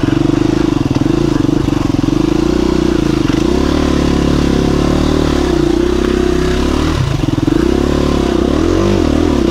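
KTM 350 EXC-F dirt bike's single-cylinder four-stroke engine pulling the bike slowly up a rocky trail section, its revs rising and falling several times in the second half as the throttle is worked.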